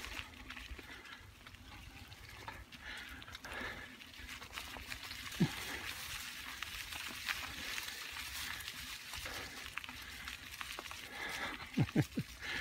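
Bicycle rolling uphill over a forest track thick with dry fallen leaves: a steady rustle of tyres through the leaves, with a few low thumps on the microphone, one in the middle and a quick cluster near the end.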